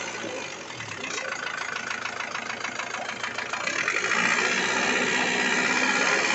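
Isuzu 4JA1 four-cylinder diesel engine running with a knock, revved up and getting louder about four seconds in. After overheating, the engine has damaged piston rings and excessive blow-by, and the mechanic judges that it needs a general overhaul.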